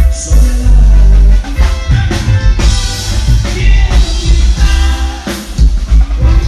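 Live regional Mexican band playing on stage: drum kit, electronic keyboard and a singer, loud with heavy bass.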